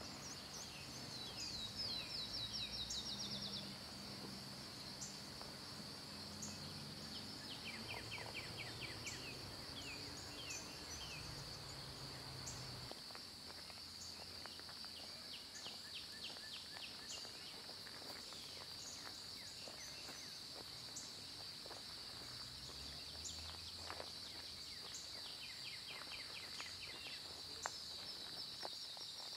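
Summer outdoor ambience: a steady high-pitched insect trill of crickets or bush-crickets, with short series of quick bird chirps every few seconds. A low rumble underneath stops abruptly about thirteen seconds in.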